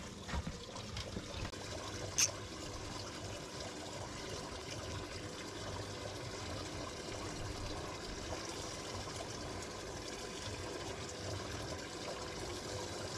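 Water lapping and trickling against a pontoon boat's hull, with one sharp click about two seconds in.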